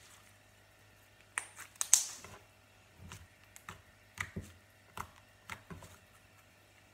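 Black butter slime being poked and squeezed by fingers, giving an irregular series of sharp little clicks and pops, the loudest about two seconds in.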